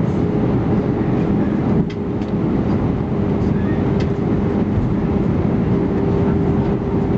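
Cabin noise aboard an Airbus A319 airliner: a steady low rumble with a steady hum, and two faint clicks about two and four seconds in.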